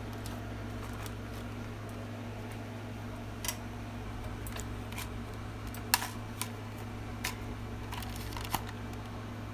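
Scattered sharp plastic clicks and snaps from a toy gun being handled and reloaded, about seven in all, the loudest near the middle. A steady low hum sits underneath.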